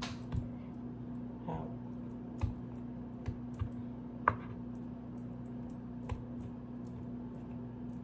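A kitchen knife cutting bread dough and knocking on a wooden cutting board: a few scattered knocks and small clicks, the sharpest about four seconds in, over a steady low hum.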